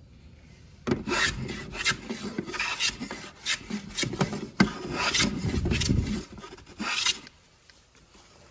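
Hand plane shaving the edge of a wooden casement sash in about a dozen quick scraping strokes. The sash is being trimmed to fit its frame. The strokes start about a second in and stop shortly before the end.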